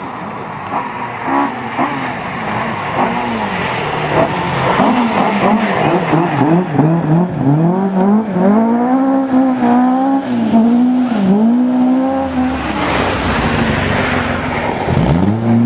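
Rally car engine revving hard, its pitch rising and falling over and over through gear changes and throttle lifts as it approaches and grows louder. About thirteen seconds in it passes close by in a rush of tyre and gravel noise, and another rising engine note follows near the end.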